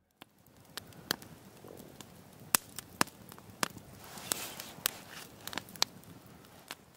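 Wood fire crackling: burning logs give off sharp, irregular pops and snaps over a low, steady hiss.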